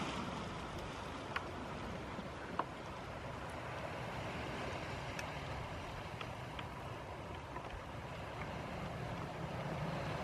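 Steady wash of shallow seawater with wind on the microphone, broken by two faint ticks about one and two and a half seconds in.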